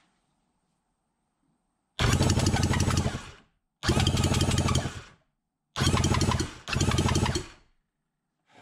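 Electric starter motor cranking a Kawasaki 1100 three-cylinder two-stroke jet-ski engine on the bench, in four bursts of about a second each. Each burst cuts off sharply and the engine turns over without starting.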